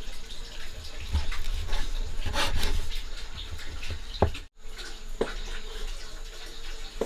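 Water running and splashing, with a few short knocks; the sound drops out for an instant about halfway through.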